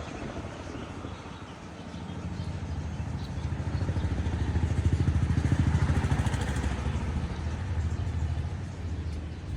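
Skid steer loader's engine running with a fast, even pulse, getting louder from about two seconds in and easing off again after the middle, as the machine works or moves under throttle.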